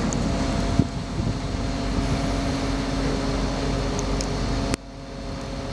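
Steady outdoor rumble and hiss with a low, steady engine-like hum underneath; the rumble drops off suddenly near the end.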